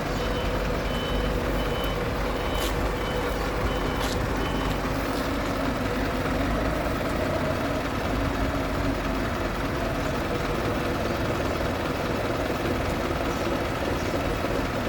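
Industrial carpet-washing machinery running with a steady hum. Over the first four to five seconds a high electronic beep repeats in short pulses, and two sharp clicks fall in among them.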